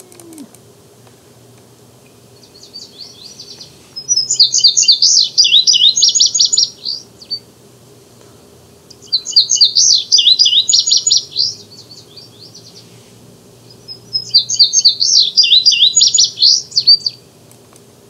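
Recorded male indigo bunting song played back on a tablet: three songs of quick, high, sharp notes, each lasting about three to four seconds with short pauses between, a song the presenter calls ploppy and fizzy.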